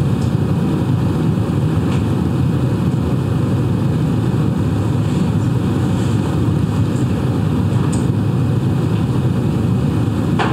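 Steady low rumbling background noise with no clear pitch or rhythm, the even hum of a room's ventilation or equipment picked up by the microphone.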